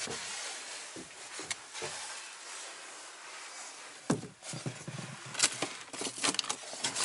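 Light knocks and clatter of things being handled inside an old wooden cupboard: a few faint clicks at first, then a run of sharper knocks from about four seconds in.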